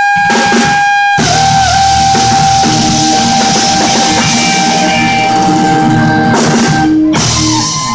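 Rock band playing: drums and bass come in about a second in under one long held high note, which ends about seven seconds in.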